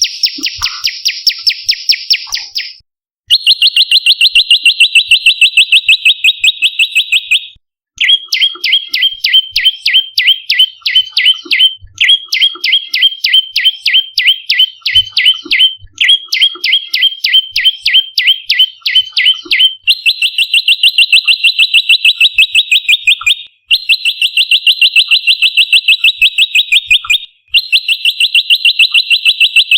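Prenjak lumut calling loudly: rapid trills of sharp chirps, about ten a second, in bouts of roughly four seconds with brief breaks between them, some bouts made of notes that drop in pitch.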